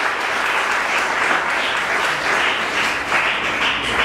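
Audience applauding, a dense steady clapping that stops right at the end.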